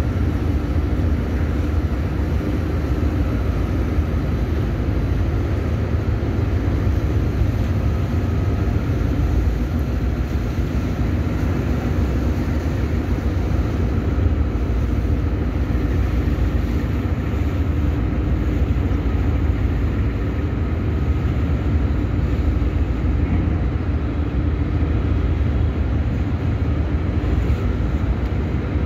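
Tugboat's diesel engines running steadily, heard from on board as a loud, even, deep rumble.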